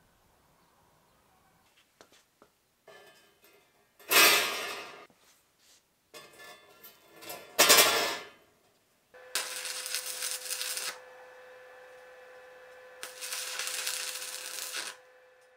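Expanded steel mesh clattering into a steel frame on a metal workbench, twice. Then two bursts of arc welding, each a couple of seconds of crackling hiss over a steady hum from the welder.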